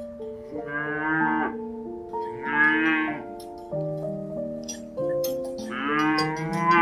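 Cow mooing three times, each call about a second long, over background music.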